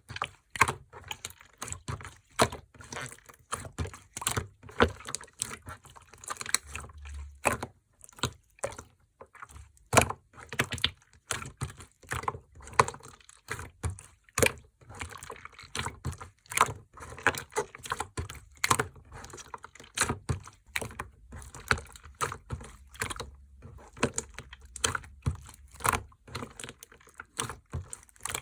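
Clear slime being squished and pressed by hand, giving a steady stream of irregular wet clicks and pops.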